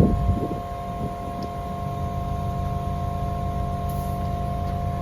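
Steady machine hum with a low rumble and two faint, steady whining tones.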